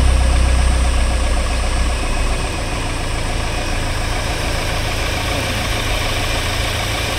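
Porsche Macan SUV engine running just after being started, louder for the first two seconds, then settling to a steady idle. It is the engine the owner says intermittently makes a tractor-like noise.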